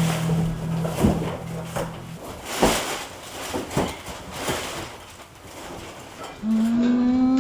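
Cardboard shipping box handled and opened, with scattered knocks and rustles as a unicycle is lifted out. A held music chord stops about two seconds in, and a long, slowly rising tone starts near the end.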